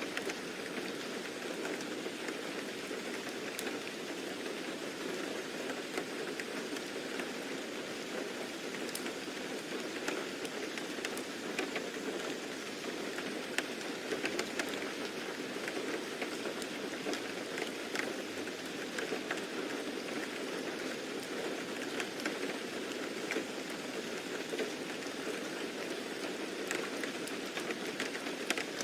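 Steady rain falling, a continuous patter with many single drops ticking sharply throughout.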